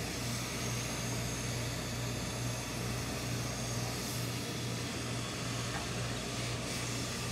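Steady low hum under an even hiss from a tailor's hose-fed industrial steam iron and its steam supply, running without a break.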